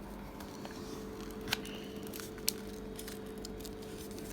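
A square sheet of origami paper being pulled and pressed into a fold: faint paper rustles with two short sharp ticks, over a steady background hum.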